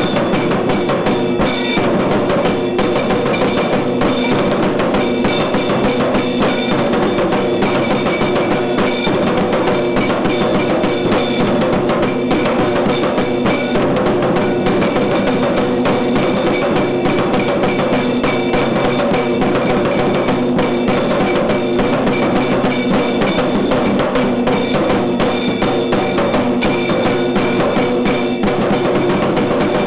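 Tiru Kailaya Vadya, a South Indian temple percussion ensemble, playing continuously: dense, fast drumming with steady held tones underneath.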